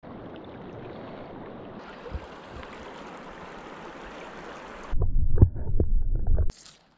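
Steady rushing of a stream for about five seconds. Then a louder, muffled low rumble with a few knocks as the camera goes under the water, which cuts off suddenly.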